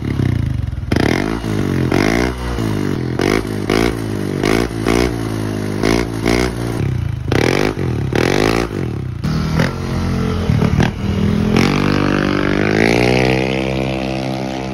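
Yamaha Aerox V1's single-cylinder engine through an aftermarket Apido V4 exhaust, revved in many quick throttle blips, then in one long rev that climbs and holds high for the last few seconds: an exhaust sound check.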